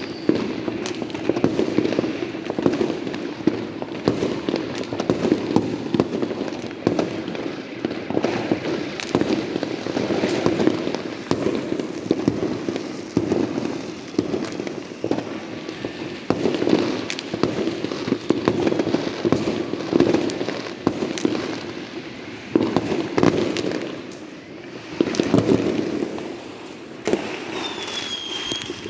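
Fireworks and firecrackers going off continuously: many overlapping bangs and pops over a steady rumble, with a short falling whistle near the end.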